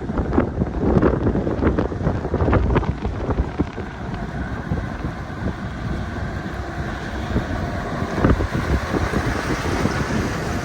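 Road roller's diesel engine running, with a dense, irregular low rumble and scattered knocks that are busier in the first few seconds.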